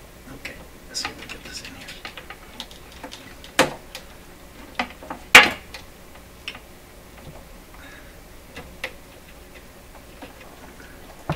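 Scattered light clicks and knocks of a cheater power cord's plug being fitted into the back of a Bang & Olufsen Beocord 2000 reel-to-reel tape recorder, with two sharper clacks about three and a half and five and a half seconds in, the second the loudest.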